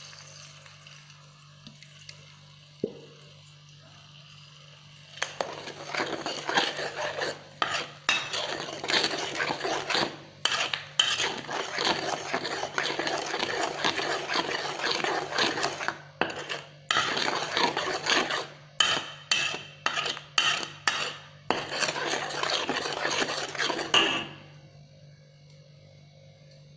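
Steel spatula scraping and stirring against a wok as ground spice paste is sautéed, in quick repeated strokes from about five seconds in until near the end. Under it runs a faint steady low hum.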